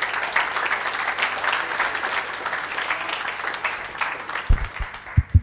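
Audience applauding, thinning out near the end. In the last second, several loud low thumps of a handheld microphone being handled.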